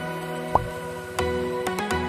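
Background music with held chords and a steady beat.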